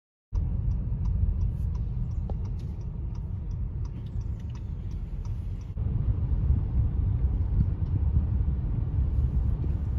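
Low rumble of a car driving, heard from inside the cabin, with a few faint clicks; it starts abruptly a moment in.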